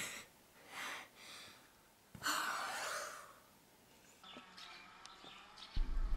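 A girl breathing in short, audible breaths, then a loud, sudden gasp about two seconds in that fades away. Near the end a steady low outdoor rumble begins.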